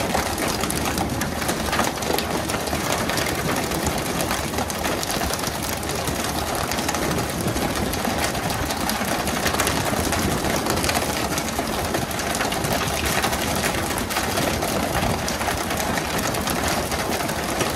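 A fishing boat's engine running steadily, with a dense patter of small knocks and clatter over it throughout.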